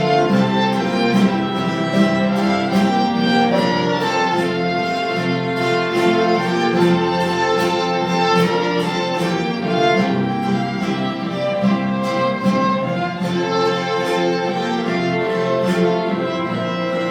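Music led by violins and a string section, with a steady beat.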